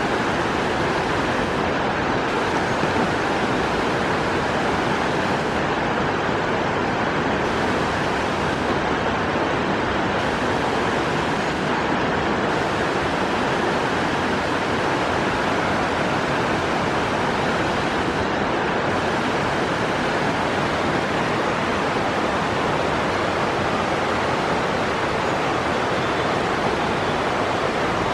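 Steady, even rushing noise with no change in level and no bird calls standing out.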